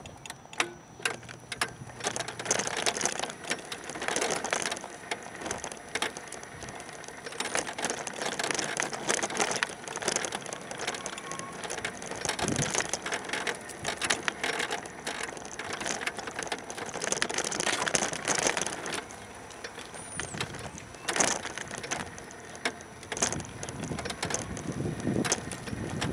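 Wheelchair rolling over cracked, uneven concrete sidewalk: the wheels and frame rattle steadily, with many sharp knocks as it jolts over cracks, joints and broken patches.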